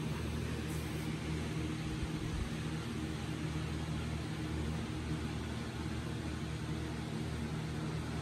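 Steady room tone: a low, even hum with a constant hiss over it, like a running fan or appliance.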